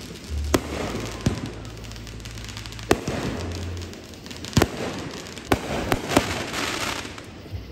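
Fireworks going off: a string of sharp bangs at irregular intervals, about eight in all, with crackling between them and a big burst about six seconds in.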